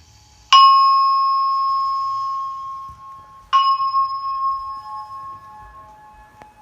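Electronic chime tones from the university's indoor emergency notification system: two struck bell-like notes about three seconds apart, each ringing out slowly, with a fainter lower tone lingering after. This marks the end of the system's test message.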